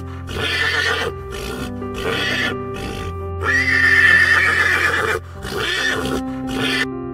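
A run of loud animal calls, each under a second with short breaks between them, over soft background music with held notes. The calls stop just before the end, leaving only the music.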